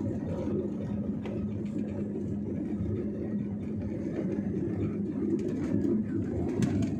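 Jet airliner cabin noise during the takeoff roll: a steady low rumble from the engines at takeoff power and the wheels running on the runway, with a steady hum underneath.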